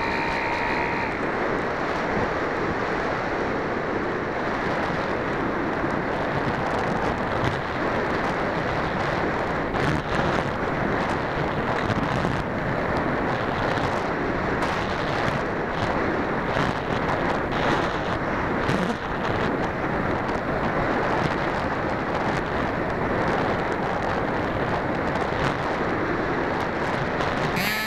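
Wind rushing steadily over the microphone of a camera riding on an AXN Floater RC plane. The plane's electric motor whine cuts off about a second in, and the plane flies on with the motor silent.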